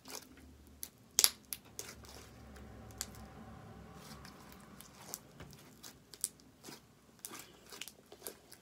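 Slime being squeezed and stretched by hand, giving scattered crackles and sharp clicks, the loudest about a second in.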